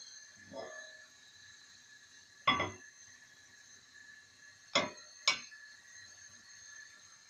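Three sharp clanks of a metal wok knocking on the gas-stove grate, the last two about half a second apart, each with a brief ring. A faint steady high hum runs underneath.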